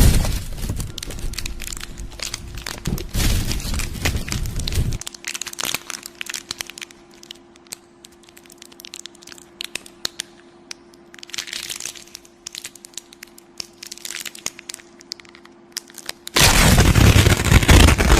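Horror sound-effect track: sharp crackles and clicks over a low rumble. After about five seconds these thin to scattered clicks over a steady low hum, and a loud burst of noise comes in for the last two seconds.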